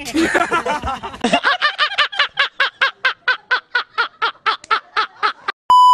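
Several young men laughing together, then one man's long, evenly rhythmic laugh of about five 'ha's a second. Near the end comes a loud, steady electronic bleep tone.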